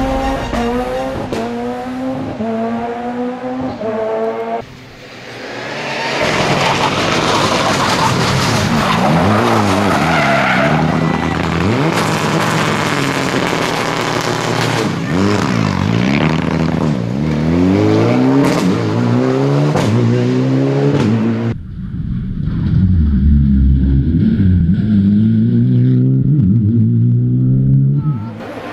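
Music for the first few seconds, then rally cars on a tarmac stage: engines revving hard, pitch sweeping up and falling again with each gear change and corner, with tyres squealing. About three-quarters of the way through the sound cuts to another, deeper-sounding car revving up and down.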